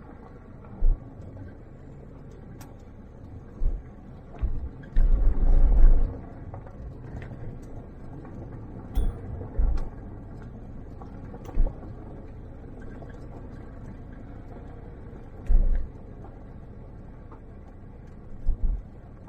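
A vehicle driving along a narrow dirt road: a steady low engine and road rumble, broken by irregular low thumps, the loudest about five to six seconds in.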